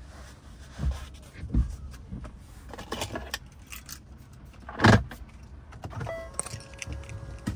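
Knocks and rustles of handling inside a parked pickup truck's cab over a low wind rumble, the loudest a thump about five seconds in. About six seconds in, a steady electronic chime tone starts.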